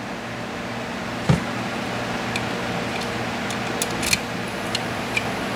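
A knock about a second in, then a few light metallic clicks as a key is handled and worked in a 10-disc Fort Maxi cam lock, over a steady background hum.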